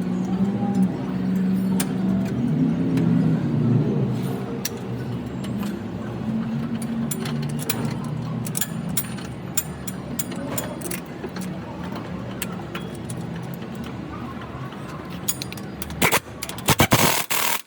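A car running, with scattered clicks and knocks and a few loud bursts near the end.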